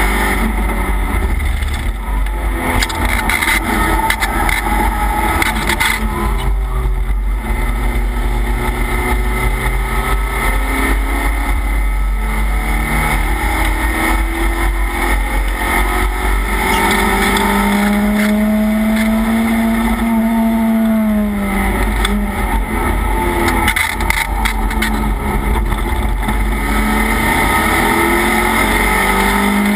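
Race car engine heard from inside the caged cockpit, under load with wind and road noise. Its note climbs steadily through a long pull, falls away sharply about two-thirds of the way in, then starts climbing again near the end.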